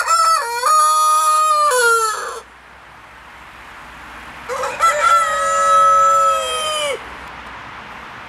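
Buff black Columbian Brahma rooster crowing twice: the first crow is under way at the start and ends about two and a half seconds in, and a second long crow starts about four and a half seconds in.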